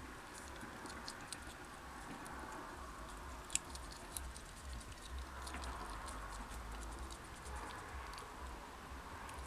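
Hedgehog snuffling and padding about on concrete: faint scattered small clicks and scratches, with one sharper click about three and a half seconds in, over a low steady hum.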